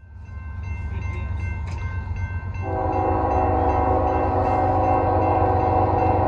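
Diesel freight locomotive rumbling. About two and a half seconds in, a multi-chime locomotive air horn starts and holds one long, steady chord.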